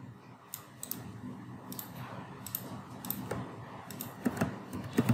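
Irregular clicks of a computer mouse and keyboard as cells are selected, cut and pasted in a spreadsheet, over low room noise.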